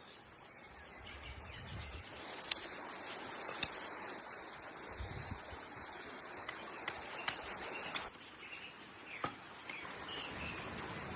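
Outdoor ambience with birds chirping over a steady hiss, broken by about half a dozen sharp pops typical of a campfire crackling.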